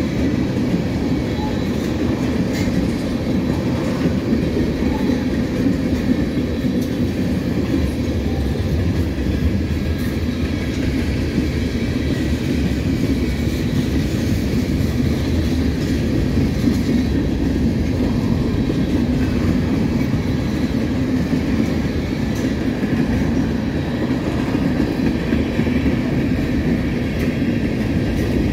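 Freight train cars (tank cars, covered hoppers and boxcars) rolling past at speed: a steady rumble of steel wheels on the rails.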